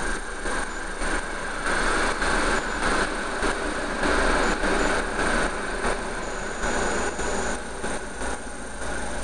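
Iseki TA375F tractor's diesel engine idling, with a passing train adding a rush of noise that swells up a couple of seconds in and fades again after about six seconds.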